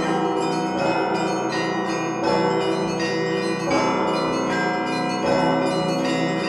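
Russian Orthodox church bells ringing, heard close up from the bell tier. Smaller bells chime in a fast, dense pattern over the sustained hum of the larger bells, with a heavier stroke about every second and a half.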